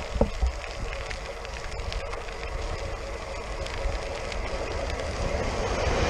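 Electric commuter train approaching along the track, growing louder toward the end, with strong wind buffeting the microphone.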